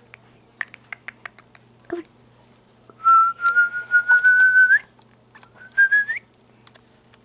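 A person whistling to call a dog: one long steady whistle of nearly two seconds that flicks upward at its end, then a shorter whistle that rises at its end.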